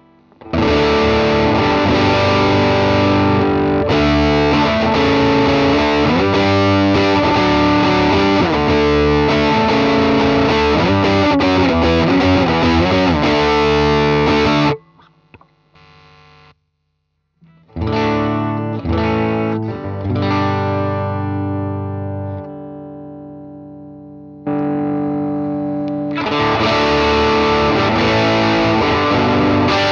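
Electric guitar on its P90 bridge pickup played through a DigiTech Bad Monkey overdrive pedal, giving a distorted tone. A busy riff runs for about half the time and stops abruptly. After a short pause, single chords are struck and left to ring out and fade, then steady strumming starts again near the end.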